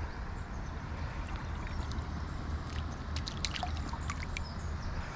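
Small water splashes and drips as a hand works in a landing net in shallow water, with a cluster of short sharp splashes about three to four seconds in, over a steady low rumble.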